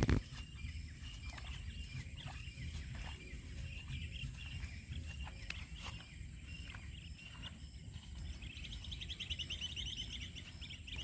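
Birds chirping in short repeated calls, with a fast trill starting near the end, over a low rumble of wind or handling noise and a steady high thin whine. A single thump sounds right at the start.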